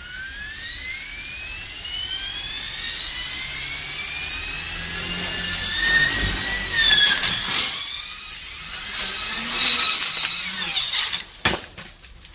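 RC helicopter's motor and rotor spooling up with a rising whine, then clattering strikes as the spinning blades hit things, and a sharp crack near the end, after which the whine falls away.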